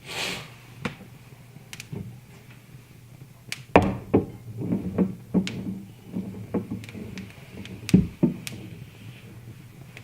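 Wood fire crackling, with irregular sharp snaps and pops, the loudest about 4 and 8 seconds in.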